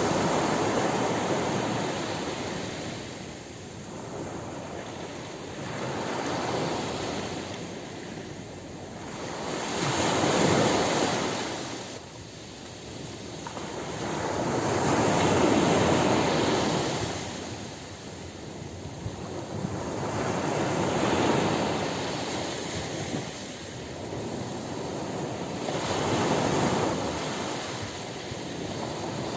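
Ocean surf breaking on a beach: a steady wash of noise that swells and recedes with each wave, about every five seconds.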